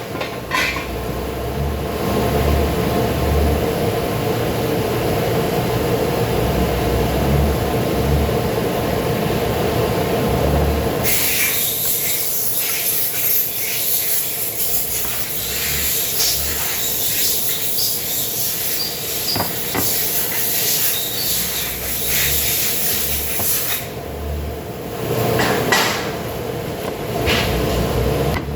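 Steady mechanical running noise with low thuds, broken by a long loud hissing spray that starts about a third of the way in and stops a few seconds before the end.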